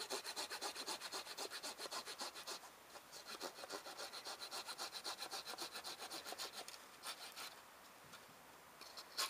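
Small folding hand saw cutting through a thin branch at its fork in quick, even back-and-forth strokes, with a short pause about two and a half seconds in. The sawing stops about seven and a half seconds in, and a couple of sharp clicks follow near the end.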